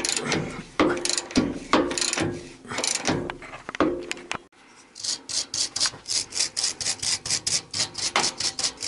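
Ratchet wrench clicking in repeated strokes, about two a second, as it turns a nut on the skid-plate bolt under a VAZ 2109–2115; the nut keeps going round without coming off because the bolt is spinning with it. About halfway there is a sudden break, then a quicker, even rhythm of about three strokes a second.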